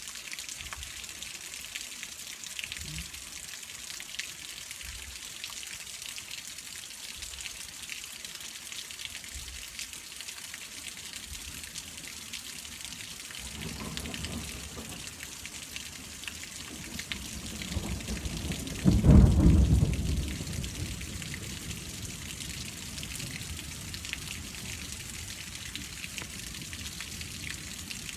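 Steady rain falling during a thunderstorm, with thunder rolling twice: a faint rumble about halfway through, then a much louder rumble about two-thirds of the way in that fades over a couple of seconds.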